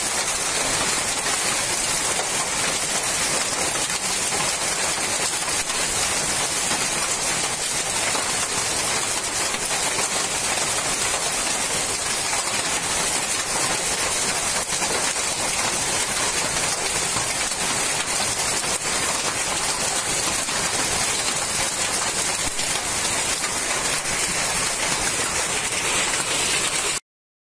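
Hailstorm with heavy rain falling on wet ground: a dense, steady hiss that cuts off abruptly near the end.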